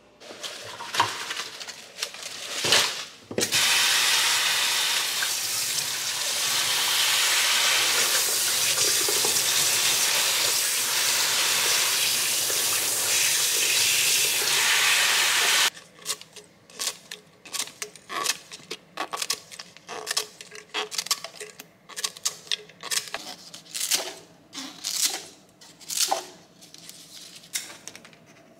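Kitchen tap water running steadily over pandan leaves as they are washed by hand, starting about three seconds in and cutting off suddenly about halfway through. Before and after it come scattered light clicks, knocks and clatter of the leaves and kitchen things being handled.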